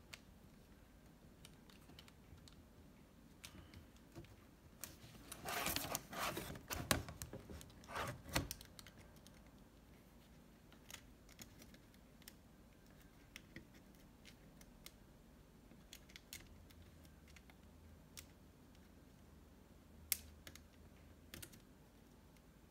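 Plastic clicks and rattles of a laptop keyboard and case being handled, with a busy run of knocks and scrapes about five to eight seconds in and only scattered light clicks after.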